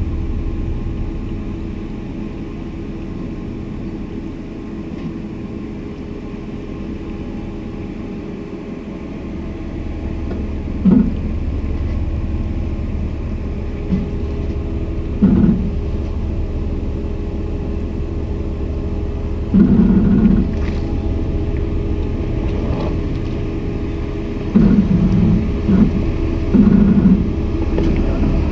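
Jeep Cherokee Trailhawk crawling over rocks on a trail, its engine a low steady rumble that grows louder as it approaches, with several short louder surges.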